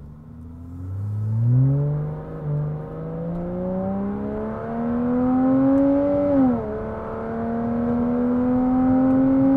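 Porsche Cayman 987.1 S 3.4-litre flat-six breathing through an aftermarket Topgear valved sports exhaust with the valves open, accelerating hard in second gear. The engine note rises steadily for about six seconds, drops sharply, then climbs again more slowly.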